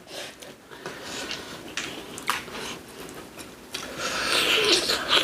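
Mealtime handling noises: scattered light clicks and taps of utensils and dishes, then a louder rustling noise for the last second and a half.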